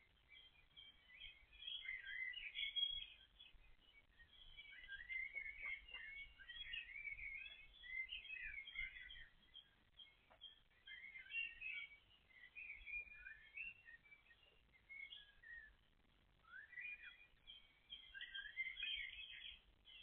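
Songbirds singing: many short, high chirps and trills overlapping, with brief pauses between runs.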